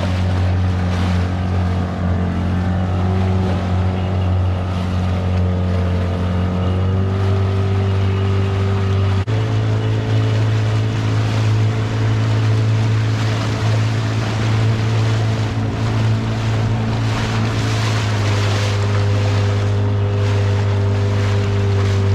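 Outboard motor of a small inflatable boat running steadily, with water and wind noise around it. Its note changes abruptly about nine seconds in.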